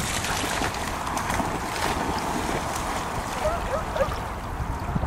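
Wind buffeting the microphone, with water sloshing around wading dogs. A few brief high squeaks come about three and a half seconds in.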